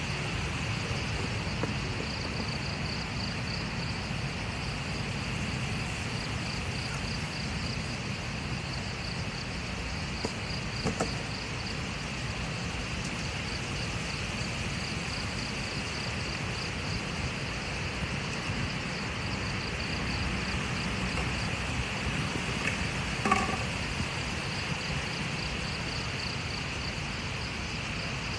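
Strong wind on the microphone as a steady low rumble, with crickets trilling in a fast-pulsing high chorus throughout. Two brief faint clicks.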